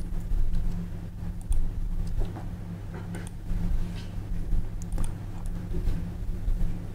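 Scattered computer keyboard and mouse clicks while code is cut and pasted, over a steady low electrical hum.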